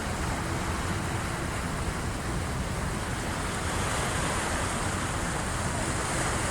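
Waves of the incoming high tide washing in, heard as a steady, continuous rush of surf.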